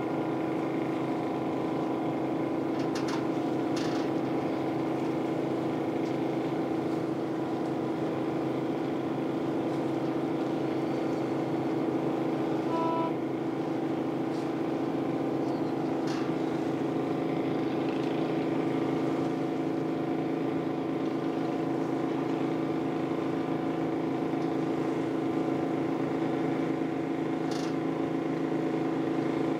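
Boat engine running steadily, a continuous hum with a strong steady tone. A brief high beep sounds about halfway through.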